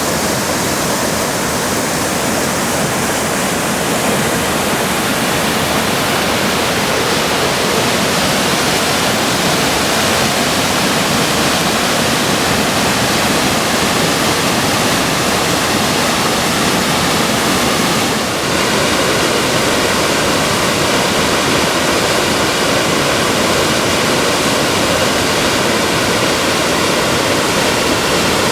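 Mountain waterfall pouring, a loud steady rush of falling water. About two-thirds of the way through the sound changes abruptly to a slightly different rush.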